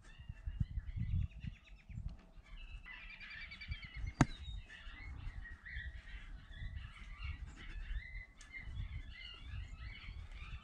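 Small birds chirping and twittering continuously, with wind rumbling on the microphone and one sharp click about four seconds in.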